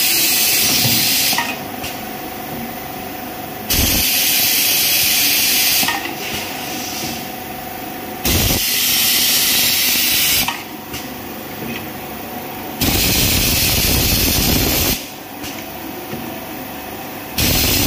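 Rotary double-head honey spoon filling and sealing machine running through its cycle: a steady machine hum broken about every four and a half seconds by a loud rushing hiss lasting about two seconds, with a small click as each hiss ends.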